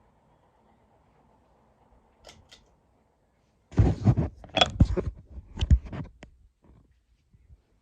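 A quick cluster of sharp clicks and rattling, loud and close, lasting about two and a half seconds, after two light clicks and over a faint steady hum.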